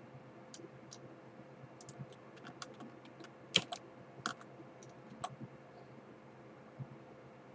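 Computer keyboard and mouse clicks, scattered and irregular, the loudest about three and a half seconds in, over a steady hum.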